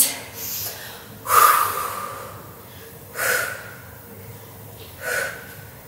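A woman breathing out hard through her nose and mouth in time with her squats: three short, breathy exhales about two seconds apart.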